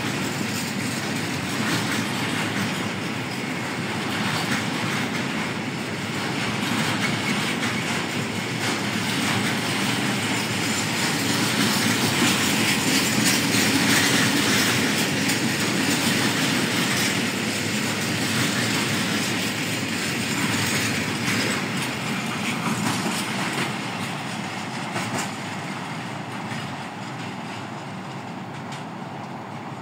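Freight train wagons rolling past, steel wheels clattering over the rail joints in a continuous rumble. It is loudest about halfway through and fades toward the end.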